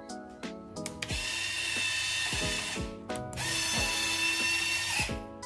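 A small electric motor whirring twice, each run lasting a little under two seconds, over background music.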